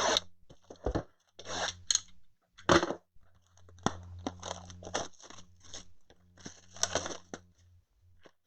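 Card boxes and pack wrappers being torn open and crumpled, in irregular crackling bursts of varying length, over a steady low hum.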